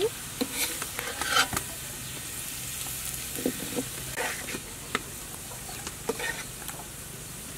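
Minced garlic sizzling in oil in a metal wok, a steady hiss, with scattered scrapes and clicks from a metal ladle stirring it.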